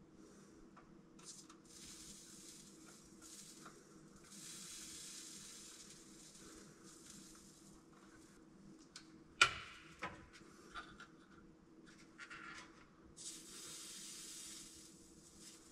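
Two hissing sprays from an aerosol can onto a badly corroded wiring connector, the first about four seconds in and lasting a couple of seconds, the second near the end. About nine seconds in comes a sharp click, the loudest sound, with a fainter one just after, over a steady low hum.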